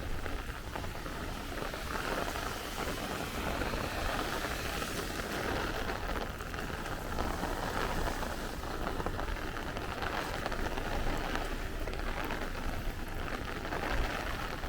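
Steady rain falling as a thunderstorm passes.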